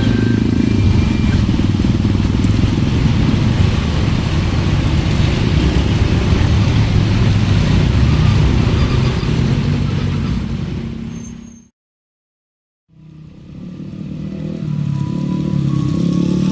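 Loud, steady rumble of passing vehicles with clatter, fading out about eleven seconds in, dropping to dead silence for about a second at an edit, then building up again.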